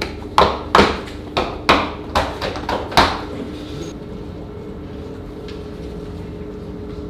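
About eight sharp wooden knocks in the first three seconds, as boards of shaped dough are set onto the runners of a metal bakery proofing rack, over a steady machine hum that carries on alone afterwards.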